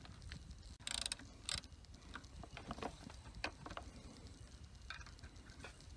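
Faint metal clicks and light scraping of an Allen key turning the clamp bolts of motorcycle clip-on handlebars. Two brief rasping scrapes come about a second in.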